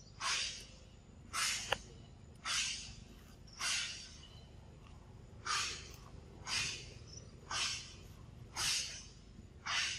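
Short hissing pulses repeating about once a second, each starting sharply and fading quickly, with one beat missed midway, over a steady low hum.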